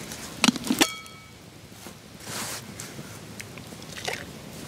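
Stainless steel percolator coffee pot being handled: two sharp metal clicks and a clink that rings briefly about a second in, then a short hiss and a few light clicks.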